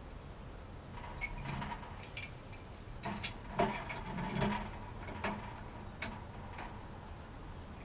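Wrench and pliers working the nut of a water heater's flexible connector, loosening it: irregular sharp metallic clicks and knocks, most of them bunched together from about three to four and a half seconds in.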